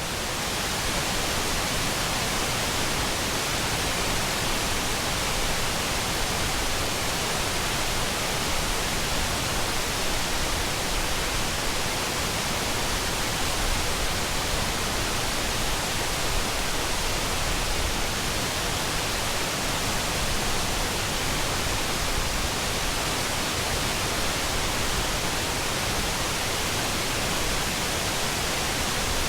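Oshinkoshin Falls, a large waterfall, rushing steadily: a loud, unbroken hiss of falling water.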